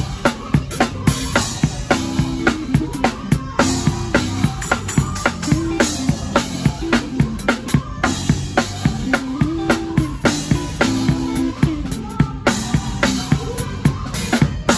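Live gospel band music driven by a hard-hit drum kit: steady snare and kick drum strokes, about three a second, over sustained low notes that step up and down.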